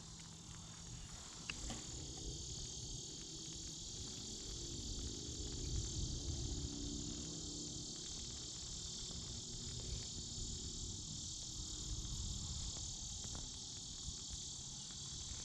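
Insects, crickets, chirping in a steady, high, even chorus.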